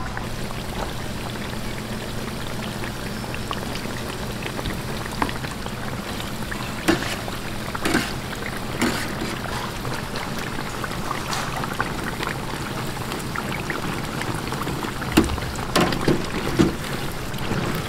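Battered pork for tangsuyuk sizzling steadily in a deep fryer's hot oil. Short metal knocks from tongs and a mesh strainer against the fryer basket come a few times, clustered near the end.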